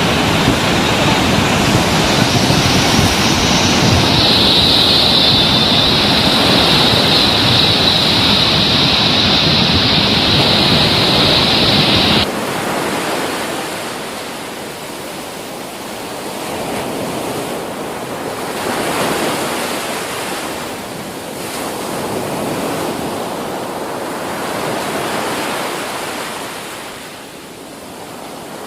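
Rushing floodwater: a loud, steady rush that cuts off suddenly about twelve seconds in. A quieter rush follows that swells and fades.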